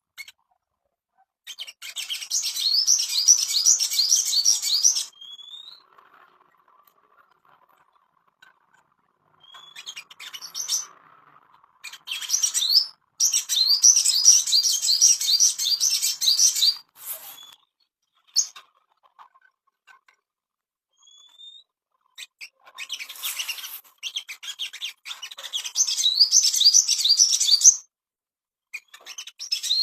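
A sogon songbird singing in long bursts of rapid, high chirping notes, three bursts of several seconds each with short single calls in between. This is a lure song of the kind played to bring a caged sogon into breeding condition.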